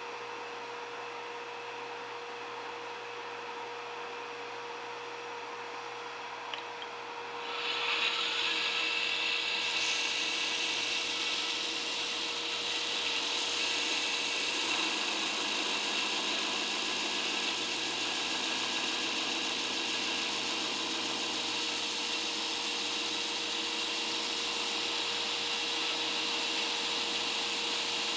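Belt grinder running with a steady hum. About seven seconds in, a wooden knife handle block is pressed against the moving belt, and a louder grinding hiss sets in and holds steady as the handle is shaped.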